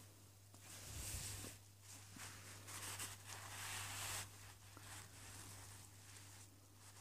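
Faint rustling and brushing of cloth as a quilted fabric quiet book is handled and a page is turned, loudest for about a second and a half around three seconds in. A steady low hum runs underneath.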